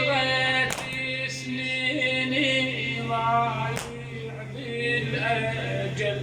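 Male radood's voice chanting a Muharram latmiya in long, drawn-out melismatic notes without clear words, over a steady low hum. A couple of sharp knocks cut in, about a second in and near the middle.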